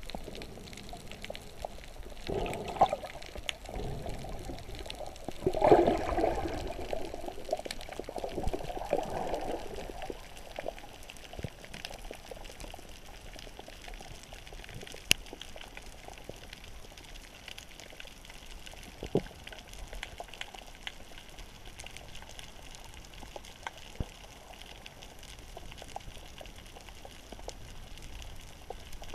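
Water bubbling and sloshing around the camera: a few bursts in the first ten seconds, then a steady faint hiss with scattered clicks.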